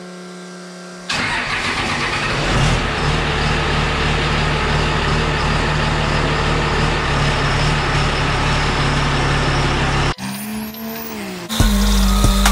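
Triple-turbo 12-valve Cummins diesel in a second-gen Dodge Ram race truck firing up about a second in and running loud and steady. It cuts off suddenly near the end, and music starts.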